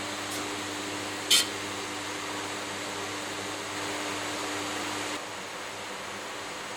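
Steady background hum and hiss of a running machine, with one brief, sharp high-pitched sound about a second in; one tone of the hum stops about five seconds in.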